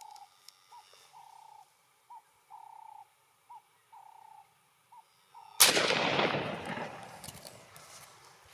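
A bird calls over and over, each call a short note followed by a longer held note. About five and a half seconds in comes a single loud shot from a Pedersoli Boarbuster Shadow .45-70 lever-action carbine, its echo fading over about a second and a half.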